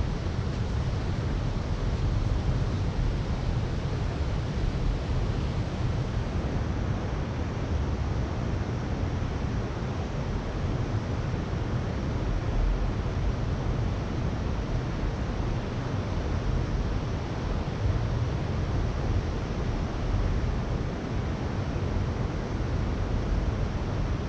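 Steady rushing noise of river current flowing past a camera at the water's surface, with a heavy low rumble on the microphone.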